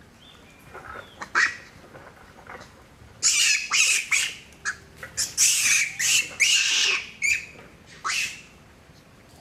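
Long-tailed macaques screaming. A couple of short shrill calls come about a second in, then a rapid run of loud, harsh screams from about three seconds in until near the end.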